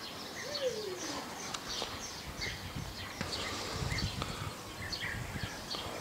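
European bee-eaters calling: many short, repeated chirps overlapping throughout.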